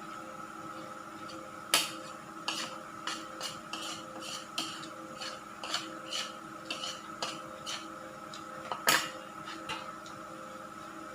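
Spoon clinking against a dish, a string of light clinks with two louder ones about two seconds in and near the end. Under it runs a steady electrical hum.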